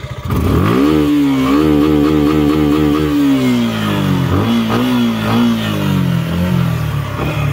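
Suzuki Gixxer SF 150's single-cylinder engine revved through its dual-tip exhaust while standing still. The revs climb quickly about half a second in, hold briefly, then fall slowly back toward idle over the last few seconds.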